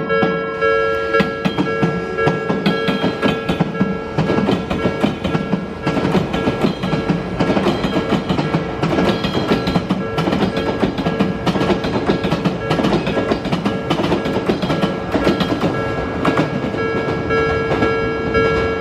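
Electric train running through a railway level crossing, its wheels clacking over the rail joints. The crossing's warning bell rings over it in a steady repeating rhythm.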